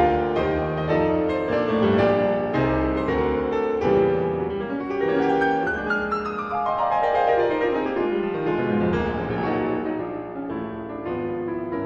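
Piano music, with notes struck in quick succession.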